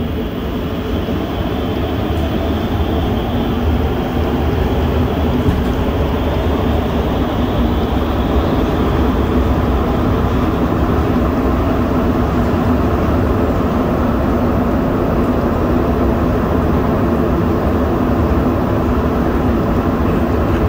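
Montreal Metro Azur (MPM-10) rubber-tyred metro train heard from inside the car as it pulls out of a station and runs through the tunnel. A steady running rumble with a hum from the drive builds over the first few seconds as the train gathers speed, then holds even.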